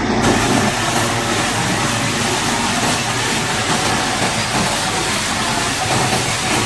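High-pressure water spray hissing, switching on suddenly just after the start and holding steady, over an engine running underneath.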